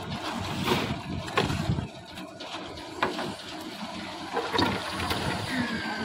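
Wet concrete sloshing and sliding as metal head pans of it are tipped onto the slab, with knocks and scrapes of the pans.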